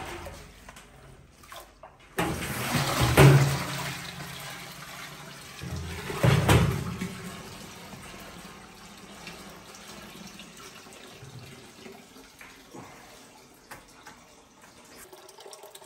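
Plant-dye liquid pouring and draining through a perforated stainless-steel strainer basket of steeped plant matter as it is lifted out of the dye pot, splashing into the pot below. It starts suddenly about two seconds in, is loudest in the first half, then settles to a steady trickle: the plant material being strained out of the dye bath after extraction.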